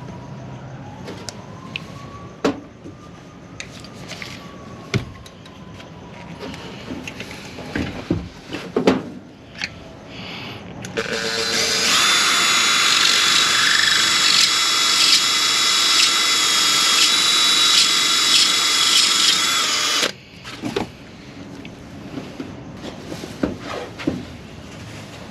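An electric drill drilling out a damaged threaded hole in a van engine, to be rethreaded for a thread-repair coil insert. It runs steadily with a high whine for about nine seconds from around the middle, then cuts off. Before and after come light clicks and knocks of tool handling.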